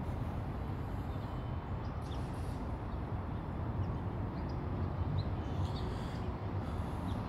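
Outdoor background ambience: a steady low rumble with a few faint, brief high chirps scattered through it.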